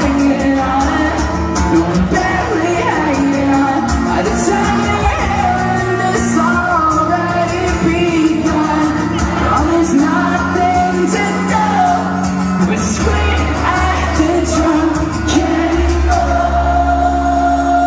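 Post-hardcore rock band playing a song live, loud and continuous, with sung vocals, heard from within the crowd in a large hall.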